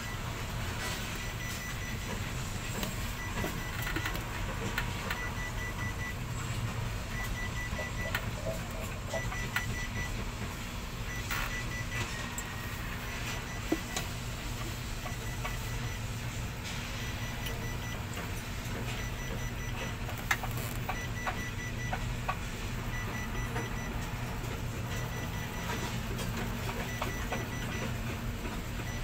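Construction-site din heard from high above: a steady low hum with distant clatter. Short runs of faint electronic beeps, like a warning alarm, sound every second or two, with an odd sharp knock, the clearest about a third of the way in.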